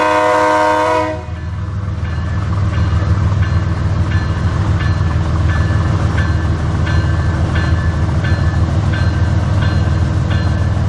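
Freight train's GE diesel locomotives approaching. The air horn sounds a multi-note chord that cuts off about a second in, then the engines run with a steady low rumble. A short ringing ding repeats about twice a second throughout.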